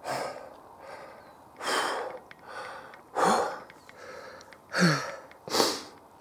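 A man breathing hard close to the microphone, out of breath from climbing uphill under a heavy backpack: five loud, ragged breaths at uneven intervals, a few with a short voiced groan at the start.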